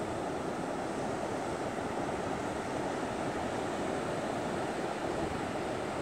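Rough pre-storm ocean surf breaking offshore and washing up a flat sand beach: a steady, continuous rushing wash with no distinct single wave crashes.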